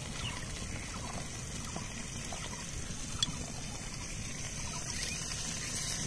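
Steady low background rumble with faint scattered clicks and one sharp click about three seconds in.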